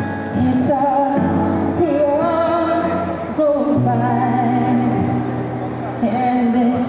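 Live acoustic band playing a pop song: a singer's sung melody over strummed acoustic guitars and steady low bass notes.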